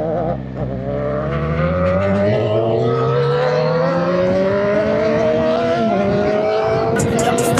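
Inline-four sportbike engine pulling under acceleration, its pitch rising steadily for about five seconds. The pitch drops briefly on an upshift near the end, then climbs again.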